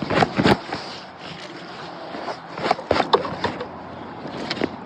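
River water running steadily, with a few clusters of sharp clicks and knocks near the start, about three seconds in, and near the end.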